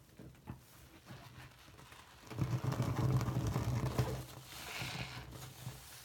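Bathroom faucet running into a sink full of soapy water. It comes on about two seconds in and drops back after another two seconds. Before it there are small wet clicks of a finger stirring the suds.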